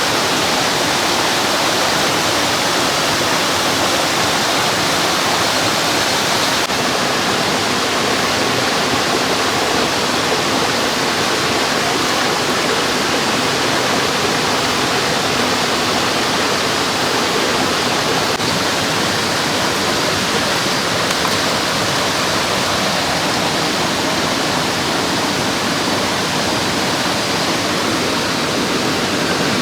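Mountain stream rushing over rocks: a loud, steady wash of flowing water.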